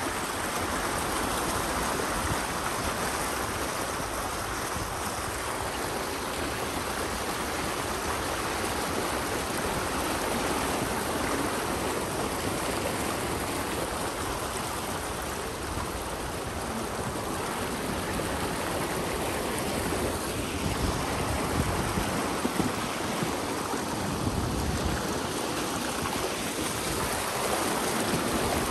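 Floodwater rushing and splashing around a Jeep as it wades slowly through deep water: a steady wash of water noise with a low rumble under it.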